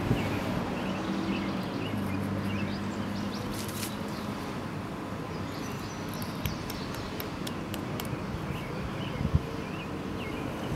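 Outdoor background noise with faint bird chirps scattered through it, a few light clicks and a faint low hum that fades after the first few seconds.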